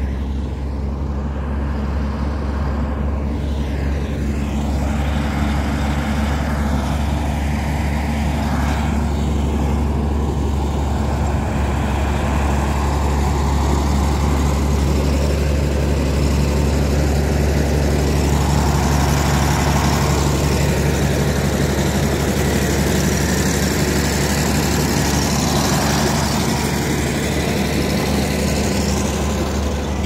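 Komatsu D85A-18 crawler bulldozer's diesel engine running steadily with a deep, even hum while the dozer works earth.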